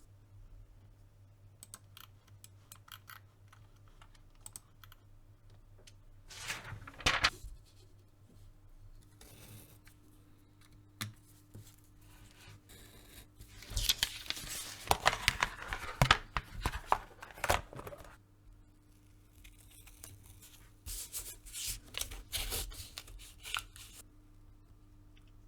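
Irregular bursts of scraping, clicking and tearing-like rustling from hand work with leather and tools on a bench. There is a short cluster about a quarter of the way in, a longer, busier run past the middle, and another cluster near the end, over a faint steady hum.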